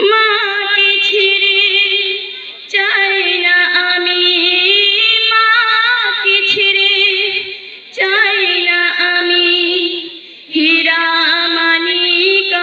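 A female singer singing a Bengali gojol (Islamic devotional song) into a microphone, in long held phrases with a wavering pitch, pausing briefly for breath three times.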